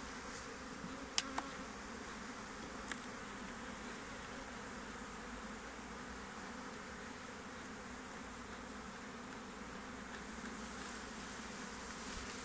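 Honeybees buzzing steadily around an opened hive. Three sharp clicks in the first three seconds come from the metal hive tool working the wooden frames.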